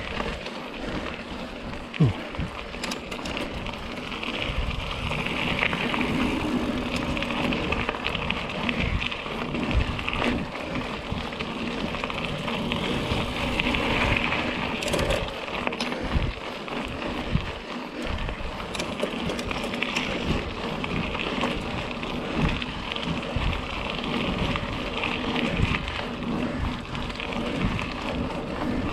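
Mountain bike riding a dirt singletrack: a steady crackling rush of tyres over dirt and stones, with the bike knocking and rattling over bumps and a sharp knock about two seconds in.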